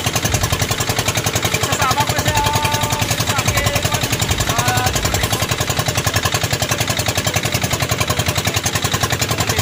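A boat's engine running steadily with a fast, even chugging beat that holds constant throughout.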